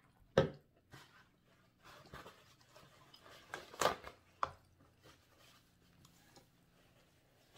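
A sharp knock about half a second in, then a sheet of paper rustling and crackling as it is handled, with a couple of sharp clicks near the middle.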